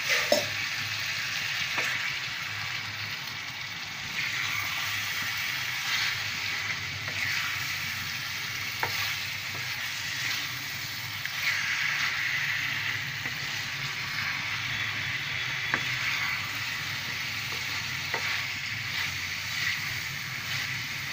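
Chicken and onion masala sizzling as it fries in a pan while a wooden spatula stirs it. The hiss swells and eases with the stirring, and a few light knocks of the spatula on the pan are heard.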